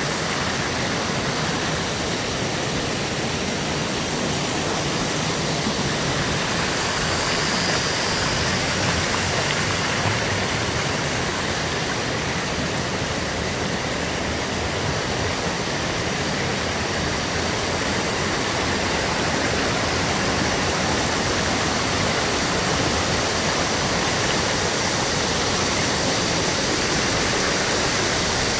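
Shallow stream rushing over rocks and small cascades: a steady wash of running water.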